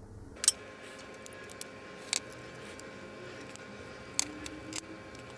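Laser-cut acrylic parts clicking and tapping against each other as they are handled and fitted together by their tabs, a few sharp clicks a second or two apart over a faint steady hum.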